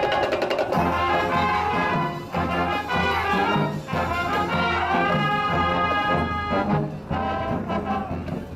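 School marching band playing, brass-led: trumpets and trombones carrying the tune in held and moving notes over a low bass line, with a quick rattle of percussion right at the start.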